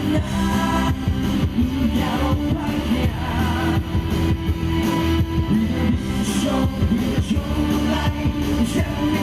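Rock band playing a song live through a PA, loud and continuous.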